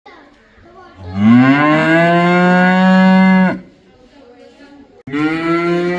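A cow mooing: one long moo of about two and a half seconds that rises in pitch at the start and then holds steady, followed by a second moo starting about five seconds in.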